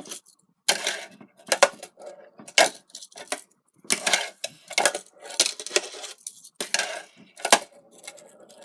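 Fingerboards clacking on a hard surface: a series of sharp clicks, about one or two a second, with a rough rattle of the small trucks and wheels between them.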